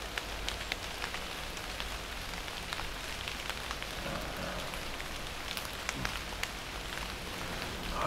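Light rain pattering steadily on tree leaves, with scattered single drips ticking on leaves and branches.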